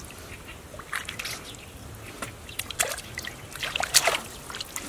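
Hands scooping and pushing mud in shallow muddy water, giving irregular splashes and sloshes, the loudest about four seconds in.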